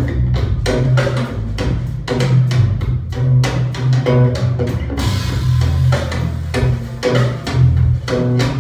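Recorded music with drums and a deep bass line, played over a hi-fi system through tall open-baffle loudspeakers driven by an F2a tube amplifier, with a steady beat.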